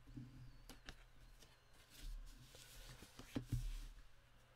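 Faint handling of card stock on a tabletop: paper sliding and rustling, with a few light taps and a soft knock about three and a half seconds in.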